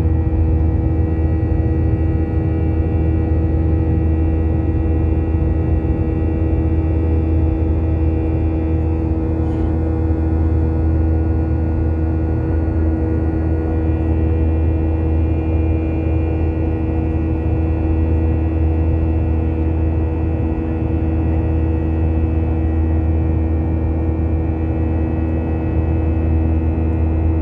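Jet airliner cabin noise at a window seat beside a turbofan engine on approach: a steady, loud low rumble with several constant hum tones from the engine running underneath.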